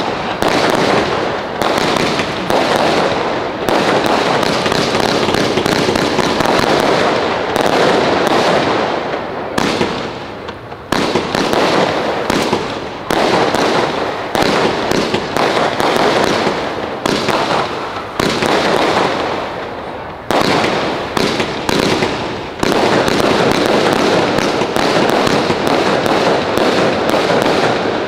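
Fireworks display: a dense, near-continuous run of aerial shell bangs and crackling, easing briefly about ten seconds and twenty seconds in before fresh volleys start.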